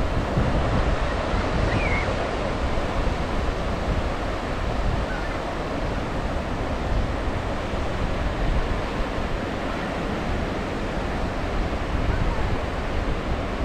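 Sea waves breaking and washing on the shore in a steady, continuous surf, with wind rumbling on the microphone.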